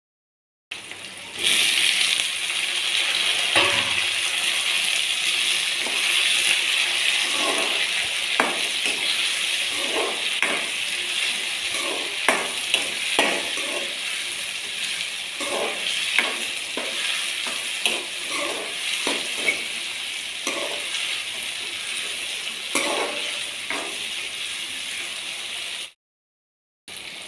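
Small onions and tomato frying in oil in a steel kadai: a steady sizzle, with a spoon clinking and scraping against the pan now and then as they are stirred.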